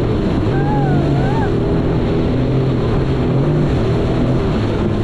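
Jet ski engine running steadily, its note rising and falling slightly, over a constant rush of water and wind. A short wavering high tone comes through about a second in.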